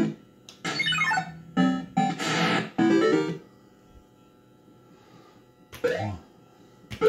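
Bell-Fruit Cash Explosion fruit machine playing its electronic sound effects: quick runs of bleeping tones and short rising and falling note jingles, which stop about three and a half seconds in, leaving a faint steady electrical hum. A couple of brief sounds follow near the end.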